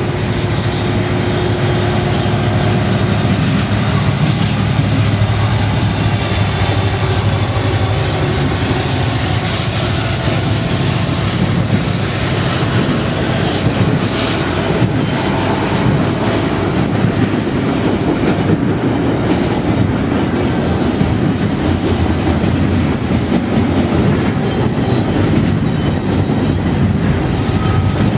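Freight train passing close by: diesel locomotives and a long string of boxcars and double-stacked container cars rolling on steel wheels over the rails, a steady, loud rumble.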